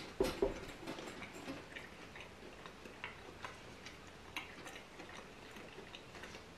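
A bite into a breaded donair meat nugget with a thin crispy coating: two short crunches just after the start. Then chewing with the mouth closed, heard as faint, irregular small clicks.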